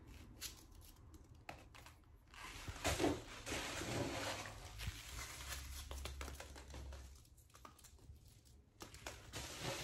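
Crinkling and rustling of a small piece of white packing material being squished between the fingers, with scattered small clicks and a busier stretch of crackle in the middle.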